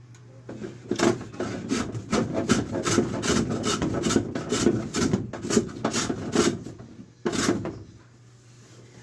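A hand tool scraping back and forth on wood in quick strokes, about three a second. The strokes start about a second in and stop near the end.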